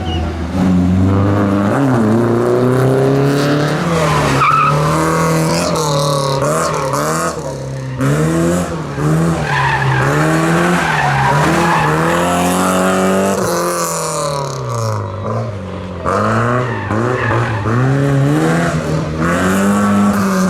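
Classic rally car engine being driven hard, revving up and dropping back again and again through gear changes, with some tyre squeal.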